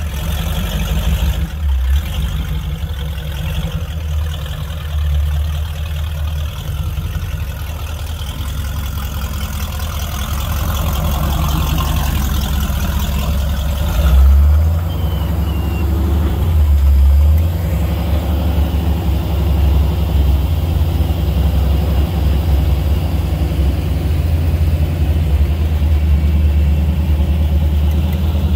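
Off-road vehicle engine running at low speed as a rock-crawling recovery rig tows a disabled Jeep Wrangler up bare rock, with the engine note surging louder a couple of times about halfway through.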